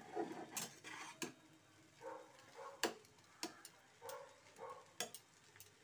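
Spatula knocking and scraping against a frying pan as stir-fried noodles are tossed: sharp, irregular clicks, about six or seven, each one short.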